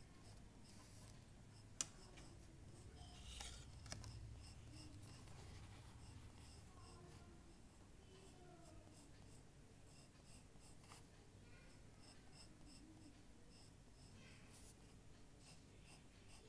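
Faint scratching strokes of a drawing tool on paper, with a sharp tap about two seconds in.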